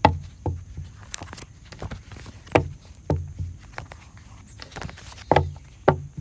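A handful of short, soft knocks and taps at irregular intervals, each with a dull low thud.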